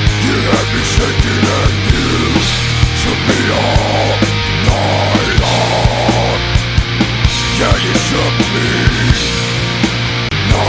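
Loud rock music with a steady, driving drum beat and no vocals.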